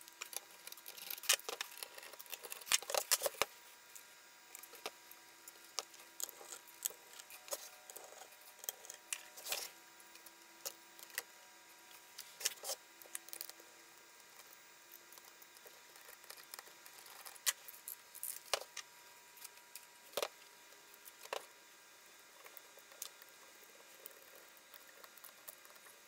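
Irregular small metallic clicks, taps and light rattles as a screwdriver works screws on a hard drive's controller board and the drive's metal carrier is handled.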